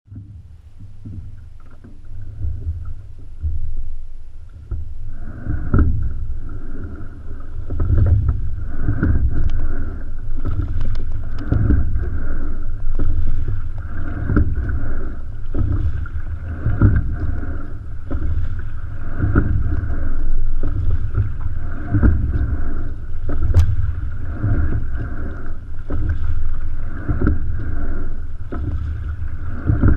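Rowing single scull moving through the water at steady-state pace, heard from on the boat: water rushing along the hull with a low rumble, surging with each stroke about every two and a half to three seconds. It builds up over the first few seconds as the boat gets under way.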